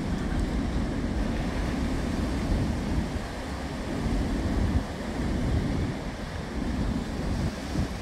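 Heavy winter surf breaking on a sandy beach, a steady rush of waves that swells and eases, with wind gusting on the microphone.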